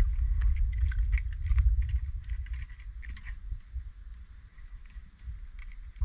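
Light clicks and rustling of a small black bream being handled and unhooked by hand, over a low rumble that eases off about halfway through.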